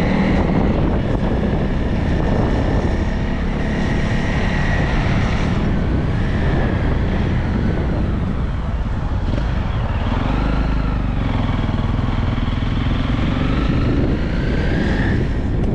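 Motorcycle engine running steadily under a low rumble while riding, its pitch rising in the last few seconds as it speeds up.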